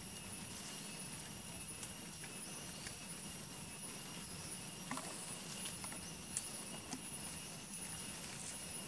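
Outdoor ambience: a steady high-pitched drone, typical of insects, with scattered light clicks and rustles of macaques moving over dry leaves and gravel, the clearest a little after halfway.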